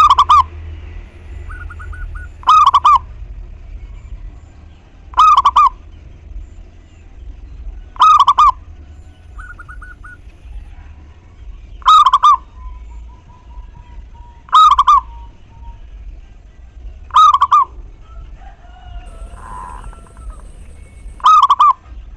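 Zebra dove (perkutut) cooing: a short, loud, warbling phrase repeated eight times, one every few seconds. Fainter chirps from other birds come between the phrases.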